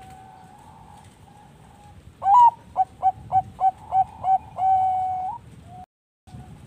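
Zebra dove (perkutut) singing its song: a loud opening note with an upward hook, a run of about seven short clipped coos at roughly three a second, then one long held coo. Other doves coo faintly throughout, and the sound cuts out briefly near the end.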